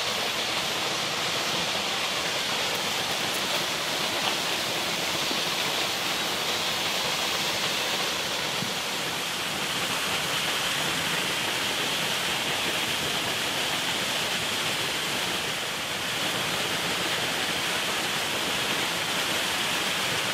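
Waterfall rushing steadily, an even, unbroken wash of falling water.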